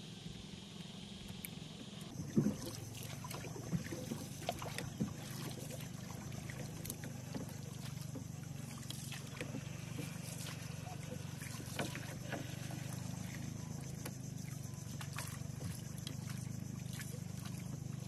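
A small outrigger canoe being paddled: the paddle dips and water trickles around the hull. Scattered knocks and clicks sound throughout, the loudest about two seconds in, over a steady low hum.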